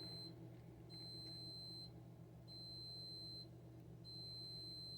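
High-pitched electronic alert beeping from a security camera system, long beeps of about a second each with short gaps, repeating steadily. It is warning that one of the security cameras is out.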